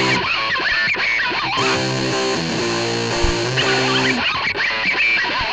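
Music led by distorted electric guitar: bending lead notes over held chords.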